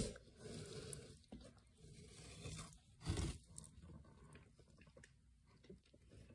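A dwarf hamster nibbling at a seed treat stick: faint, quick crunching clicks, with two louder short bumps, one at the start and one about three seconds in.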